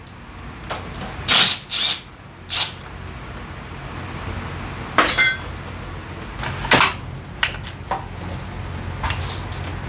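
Metal tools and parts clinking and clattering as they are handled on a cluttered metal workbench: a string of separate sharp knocks, one about five seconds in ringing briefly like struck metal. A steady low hum runs underneath.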